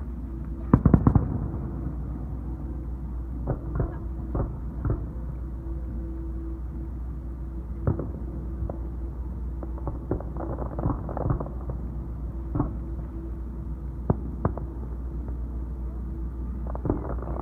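Fireworks display: aerial shells bursting, with a loud cluster of bangs about a second in and then scattered single booms and crackles every second or two.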